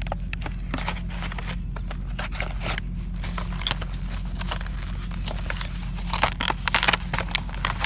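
Plastic toy packaging being handled and opened: irregular crinkling and clicking that gets busier and louder near the end.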